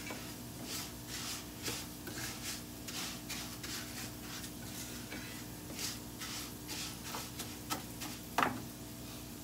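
Dry rice being stirred and scraped around a nonstick frying pan with a spoon: a steady run of quick scraping strokes, about two a second, as the grains toast and loosen before the liquid is added. One louder clack near the end.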